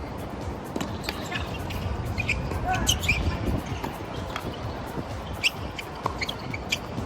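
Wind buffeting the microphone in a low rumble, with a few sharp knocks of a tennis ball being hit and bouncing on a hard court.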